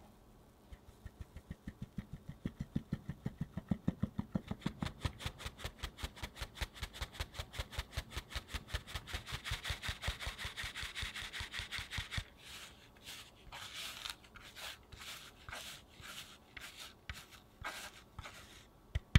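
A fine-mesh metal sieve full of flour and cocoa powder tapped and shaken to sift it: a fast, even run of taps for about eleven seconds, then slower, spaced taps as the last powder falls through, ending in one sharp knock.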